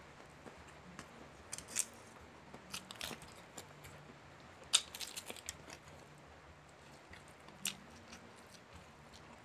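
Close-up eating of crispy Jollibee Chickenjoy fried chicken: scattered crunchy bites into the breaded skin and chewing. The loudest crunch comes about five seconds in.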